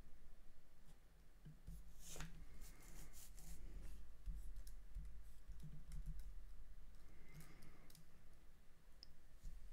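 Light clicking of a computer keyboard and mouse, with a quick cluster of clicks about two to three and a half seconds in, over a low steady hum.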